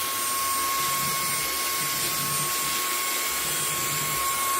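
eufy HomeVac H30 Mate cordless handheld vacuum running steadily on its low (Eco) setting while sucking up spilled M&Ms: an even rush of air with a steady motor whine.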